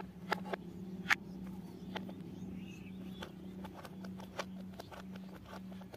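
Light plastic clicks and taps as a take-apart toy train is handled and its wheel screw is worked with a plastic toy screwdriver, over a steady low hum. The sharpest click comes about a second in.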